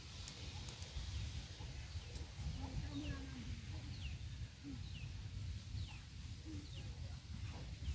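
A bird calling outdoors: a series of short falling chirps, roughly one a second, over a low rumble of wind and handling noise.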